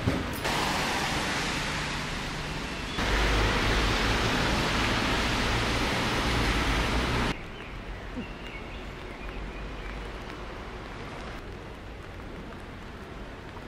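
Steady rushing noise with no clear pitch. It steps louder about three seconds in and drops away abruptly a little past halfway.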